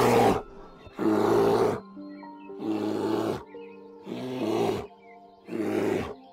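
Young brown bears growling at each other as they play-fight: five loud, rough growls of about a second each, one every second and a half or so, over soft background music.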